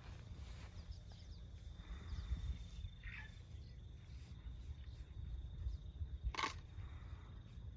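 An African elephant calf chewing a whole sweet potato with her molars, with a single sharp crunch about six seconds in. Under it a steady high insect trill and a low rumble run on.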